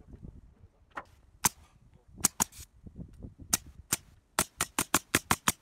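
Pneumatic roofing nailer firing nails through galvanized steel valley flashing: a few spaced sharp shots, then a quick run of about six shots a second near the end.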